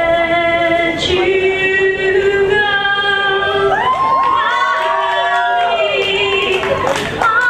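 A young woman singing into a handheld microphone, holding long notes.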